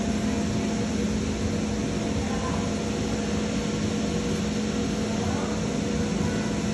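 Steady machine hum with a constant low droning tone under an even wash of noise, starting abruptly.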